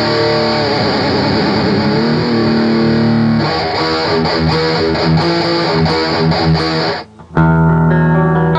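Demmelition Flying V electric guitar played through an amp with light distortion: a run of picked notes and chords, a brief stop about seven seconds in, then a chord left ringing.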